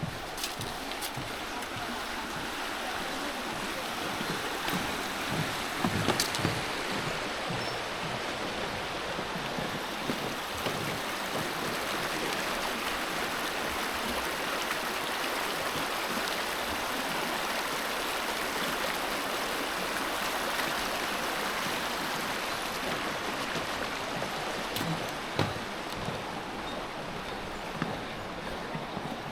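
River water rushing over rapids: a steady rushing noise that swells through the middle and eases near the end, with a few faint knocks.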